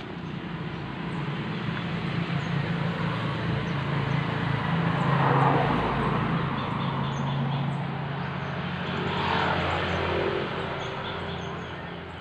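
A steady engine drone of a passing motor vehicle, swelling to a peak about halfway through and again a few seconds later.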